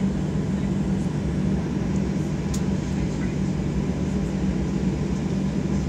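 Cabin noise inside a Boeing 737 airliner taxiing before take-off: the jet engines at low power make a steady hum over a low rumble.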